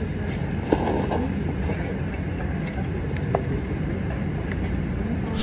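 Steady low rumble of ramen-shop background noise, with a few faint clicks of chopsticks on the bowl.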